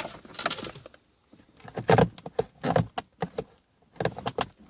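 Flathead screwdriver prying at a plastic car dome-light housing: a run of sharp clicks and rattles about two seconds in, then another short cluster near the end.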